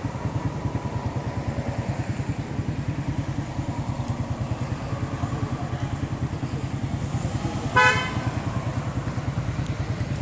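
A motorcycle engine idling steadily close by with a fast, even pulse, and a short vehicle horn toot about eight seconds in, the loudest sound.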